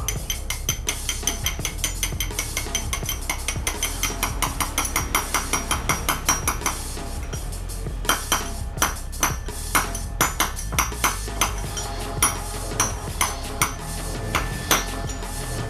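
Hammer tapping on metal while CVT pulley bearings are being replaced: a run of quick, even taps about four a second, then after a short pause slower, harder blows about two a second, over background music.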